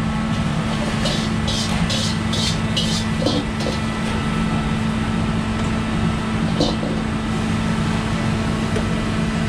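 Steady roar of a commercial wok range's gas burners and extraction, with a low hum running under it. About one and a half seconds in comes a quick run of some seven short, sharp metallic clinks, and one more just before seven seconds.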